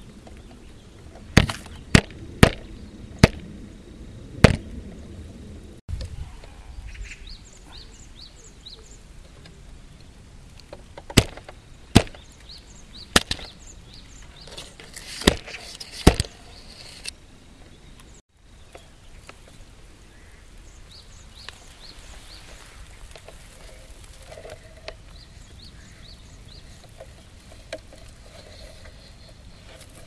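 A run of sharp knocks, five in the first few seconds and about five more around the middle, over a faint outdoor background with a few faint high chirps.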